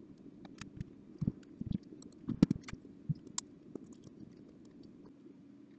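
Scattered light clicks and small knocks from a CD changer mechanism and hand tools being handled on a bench mat, over a faint steady low hum.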